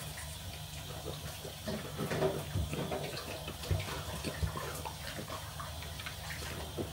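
French bulldog eating wet homemade food from a ceramic bowl: irregular wet smacking, lapping and chewing, over a low steady hum.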